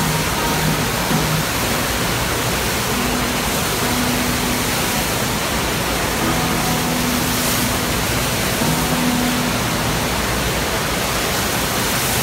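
Steady rushing of water from a FlowRider surf simulator, a thin sheet of water pumped at speed over its padded surface and throwing up spray.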